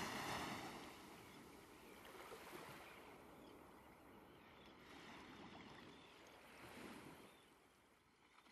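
Faint rushing noise that swells a few times and fades out near the end.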